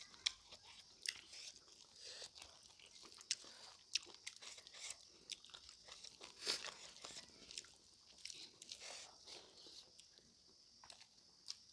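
Close-miked chewing of smoked pork and rice eaten by hand, with many short irregular mouth clicks.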